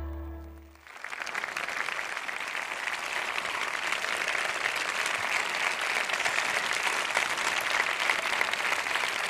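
The music track fades out within the first second, then an audience applauds steadily.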